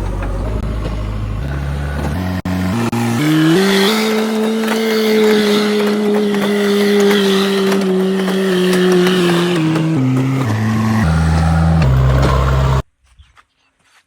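Electronic engine-revving sound. Its pitch climbs in clear steps, holds high for several seconds, then steps back down before cutting off suddenly near the end, with a few faint clicks after.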